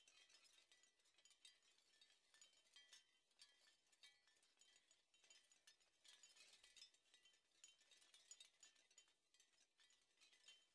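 Near silence, with only faint, high-pitched crackling clicks.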